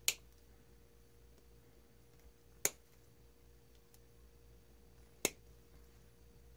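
Diagonal cutters snipping through the moulded plastic plug of an Xbox 360 power-supply cable: three sharp snaps, about two and a half seconds apart.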